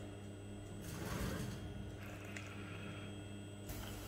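CNC tube bending machine bending a 16 mm tube without a mandrel: the bend die swings round under its drive, giving a steady low machine hum with soft mechanical whirring.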